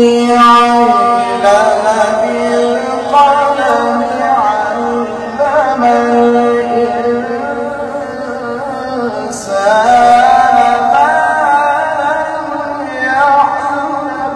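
A man's voice in melodic Qur'anic recitation (tilawah), drawing out long, wavering held notes with ornamented turns. A new phrase starts just after nine seconds.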